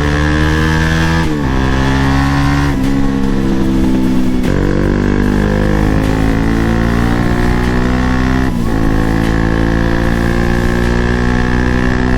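Bajaj Pulsar NS200's single-cylinder engine pulling away through the gears. Its note climbs and then drops at each of four upshifts, the last about eight and a half seconds in, after which it holds a steady pitch.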